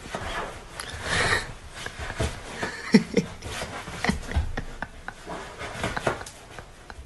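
Scattered knocks and rustles as a fluffy cat scrabbles against a fabric sofa, with a brief voice-like sound about three seconds in.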